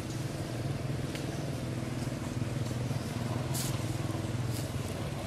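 A motor engine running steadily with a low, even hum.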